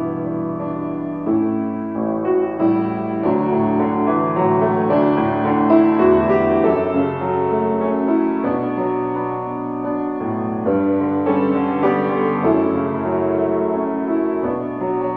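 Solo piano music, with notes struck and left ringing so that they overlap.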